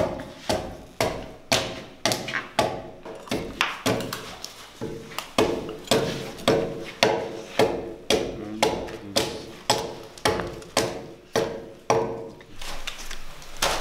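Steady rhythm of hand-tool blows striking timber, about two a second, each with a short ringing tail.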